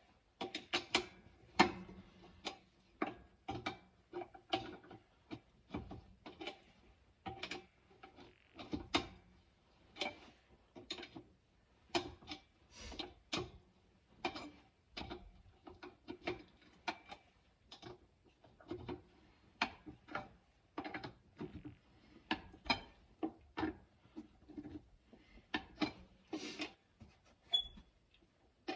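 A metal tire iron worked on a wheel's lug nuts: an irregular run of short metallic clicks, knocks and squeaks, one or two a second.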